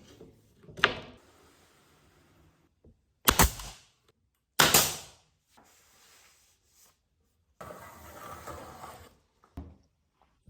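Three sharp knocks a second or two apart, then a scrape lasting about a second and a half, and a last softer knock.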